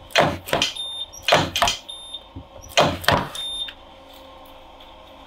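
Battery spot welder firing on the tops of the cells in an 18V DeWalt NiCd/NiMH pack: three welds about 1.3 s apart, each a pair of sharp bursts followed by a short high beep.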